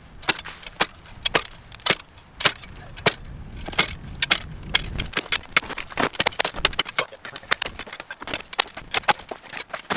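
A steel ice chisel (spud bar) chopping a hole through lake ice by hand: sharp, uneven strikes, about two or three a second, with ice cracking and chips breaking away.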